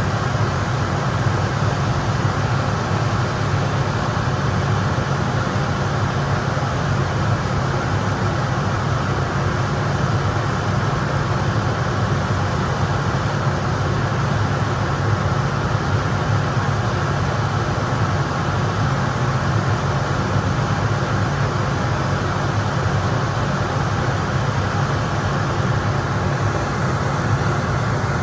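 John Deere 6110R tractor engine running steadily with a constant low drone.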